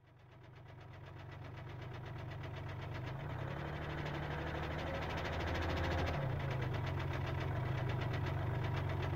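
Kia Rio 1.1 CRDi three-cylinder diesel running with a strong, rapid knock, revved up from about three seconds in and dropping back at about six seconds. The owner takes the knock for piston slap from excessively worn pistons striking the cylinder walls.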